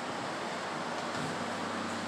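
Steady rushing background noise with a faint low hum, unchanging throughout.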